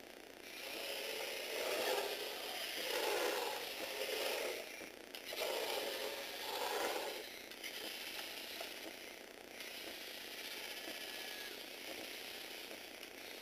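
Small electric motor in a Tamiya Universal gearbox whirring, with its plastic gears rattling as it drives a Lego Technic car. It is louder and uneven in the first half, dips briefly about five seconds in, and runs steadier and quieter after about eight seconds.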